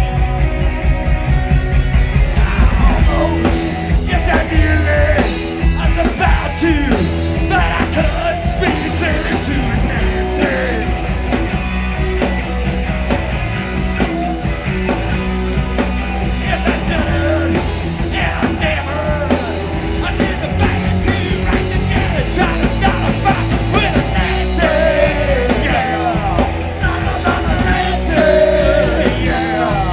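Live rock band playing a loud punk-rock song, with a singer yelling the vocals over the band.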